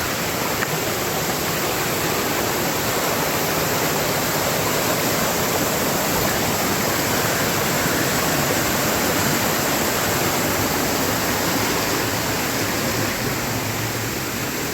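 Rushing river water, a steady even rush with no break.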